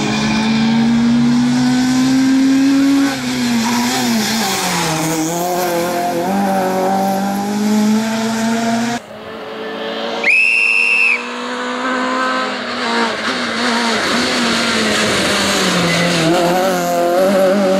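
Citroën C2 R2 rally car's engine revving hard at full stage pace, its pitch climbing and dropping again and again through gear changes and braking. There is a sudden break about nine seconds in, and a brief high squeal about a second later.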